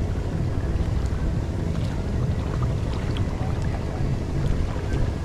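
Strong wind buffeting the microphone as a loud, gusting low rumble, with a few faint ticks over it.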